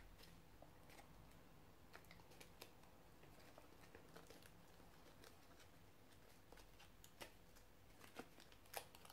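Faint, scattered rustles and small crinkles of folded sticky-note paper being pulled open by hand, as a glued origami flower is opened out; between them it is near silence.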